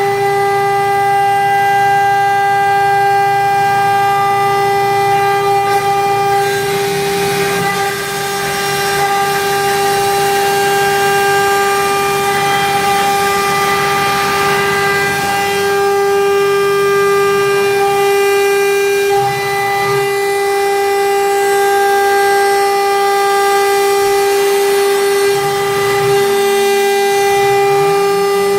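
JIKE 1325A CNC router running, its spindle giving a steady high whine. A rougher cutting noise swells and fades in the middle, and lower motor tones change as the machine moves.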